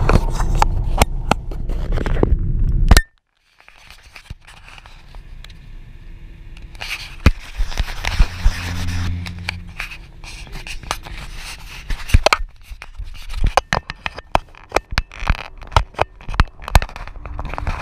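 Car cabin noise while driving at night in the rain. A low road rumble runs for about three seconds and cuts off abruptly. After that comes a quieter hiss with many scattered sharp ticks and crackles, typical of raindrops hitting the windshield and roof.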